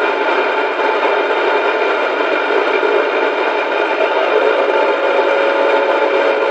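Radio static: a loud, steady hiss laced with faint buzzing tones, with no voice coming through. A faint steady tone joins in about two-thirds of the way through.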